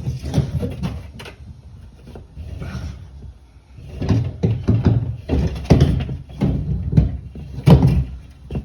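Irregular knocks, thumps and rubbing as a fish tape and electrical cable are tugged through a wall cavity where they have caught on something.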